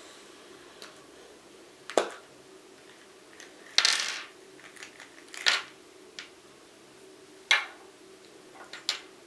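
Small hard plastic clicks and knocks, a second or so apart, with a longer rattle about four seconds in: a Kinder Surprise toy capsule and its plastic plane parts being handled and snapped together.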